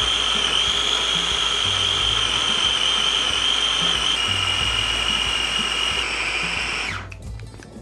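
KitchenAid food processor motor running steadily as it blends chickpeas, tahini and garlic into hummus. Its high whine drops a little in pitch a couple of times, then it switches off and winds down about seven seconds in.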